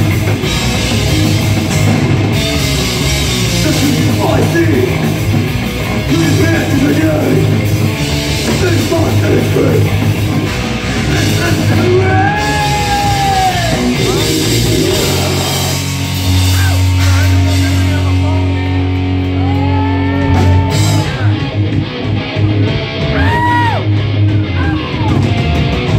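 Live heavy rock band playing loud through a bar's PA: distorted electric guitars and a drum kit, with some singing. In the last part the drums and cymbals fall away, leaving mostly guitar with bent notes.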